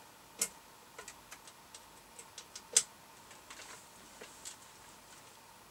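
Scattered small clicks and knocks of a plug being pushed into the back of a CB radio and its cables being handled, the two sharpest about half a second in and just before three seconds in.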